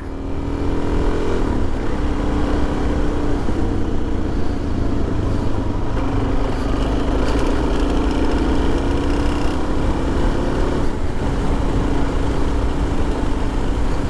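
Motorcycle engine under way, heard through a helmet-mounted lavalier mic: its pitch climbs over the first second and a half, breaks off, and climbs again more slowly, with another drop near eleven seconds in. Heavy wind rumble on the microphone runs beneath it.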